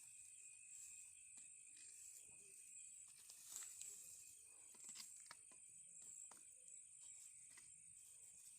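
Faint, steady high-pitched chorus of insects, with a few soft ticks scattered through it.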